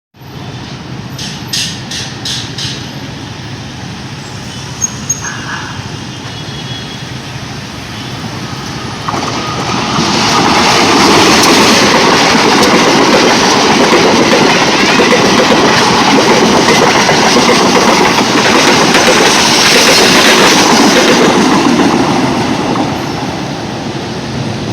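Passenger train hauled by a diesel-electric locomotive passing, a noise that builds about nine seconds in, stays loud with wheels clattering over the rails for around twelve seconds, then begins to ease. A few short clicks sound near the start.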